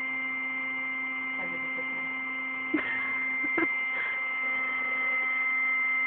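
Electric air pump running steadily with a constant whine, inflating an airbed. A couple of brief knocks come near the middle.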